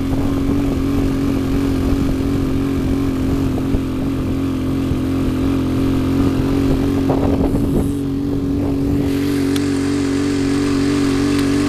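Motorcycle engine running steadily at a constant pitch while riding, with a continuous rush of wind and road noise.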